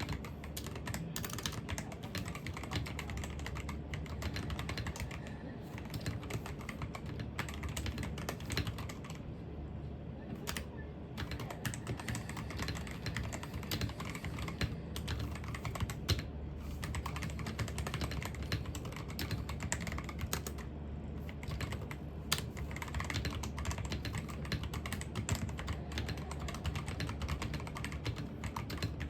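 Computer keyboard typing: a rapid, continuous stream of keystroke clicks, thinning out in a couple of brief pauses partway through.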